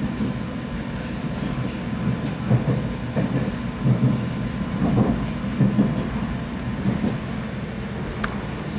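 Passenger train running, heard from inside the carriage: a steady low rumble with irregular low knocks and clatter from the wheels and car.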